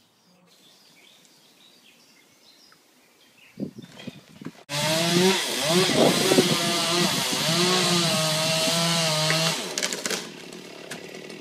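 Stihl chainsaw cutting through a section of trunk. It starts abruptly about halfway in and runs under load for about five seconds, its pitch wavering as the chain bites, then trails off near the end.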